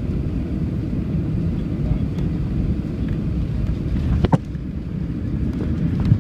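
Steady low rumble of an airliner heard from inside the cabin as it rolls along the ground after landing, with a single sharp knock about four seconds in.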